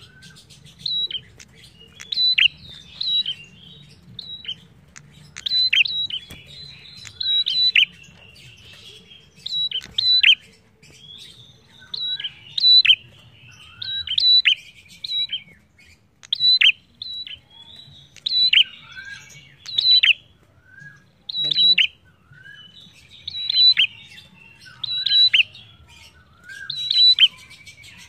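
Caged prenjak songbird singing loudly and repeatedly: short, sharp, high chirping phrases with quick falling notes, about one phrase a second with brief pauses between.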